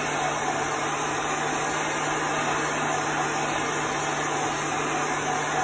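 Handheld dryer running evenly, a rush of blown air over a low hum, drying freshly squeegeed ink on fabric.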